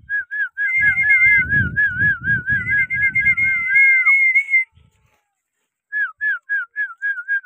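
A person whistling a warbling whistle, the pitch wavering up and down about four times a second, with a second steadier whistled tone above it and low rumbling noise underneath. It stops about four and a half seconds in, then returns near the end as a run of short repeated chirps.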